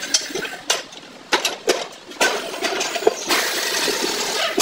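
Metal tyre levers and the tyre-changer's mounting head knocking and clinking against an alloy wheel rim as a car tyre is levered off, several sharp knocks. From about three seconds in a steady rushing, scraping noise follows as the tyre comes off the rim.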